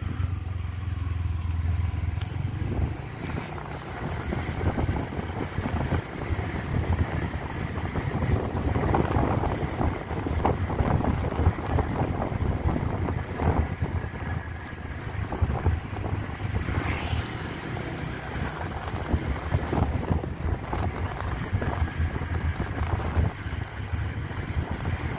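Wind buffeting the microphone over the low rumble of a motorbike riding along a road. A short high electronic beep repeats about twice a second for the first few seconds, then stops.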